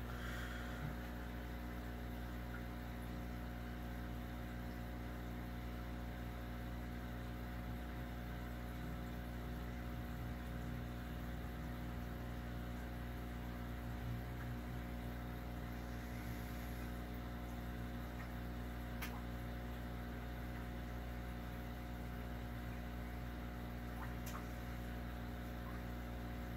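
Steady low hum made of several fixed tones, with a couple of faint ticks.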